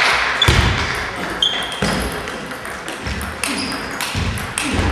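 Table tennis balls being hit and bouncing on the tables, irregular sharp clicks and short pings echoing in a large hall, with several dull thuds among them.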